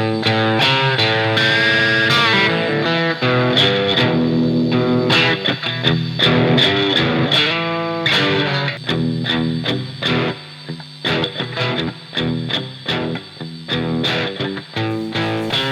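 Electric guitar played through a Marshall Valvestate 2000 AVT50 amp, slightly distorted, with held notes at first and then short picked notes and phrases.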